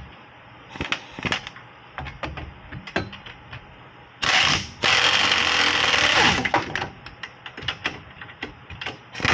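Impact wrench hammering for about two seconds on an 18 mm rear hub bolt that fails to break loose, with scattered metallic clicks and knocks of the tool being fitted before and after.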